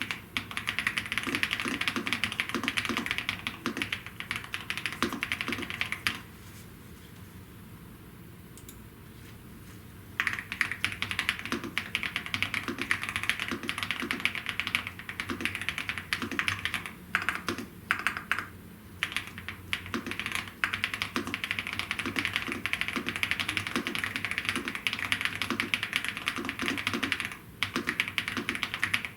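Fast, continuous typing on a Gravastar K1 Pro mechanical keyboard: a dense run of key clicks and clacks. The typing stops for about four seconds some six seconds in, then resumes with a few short breaks later.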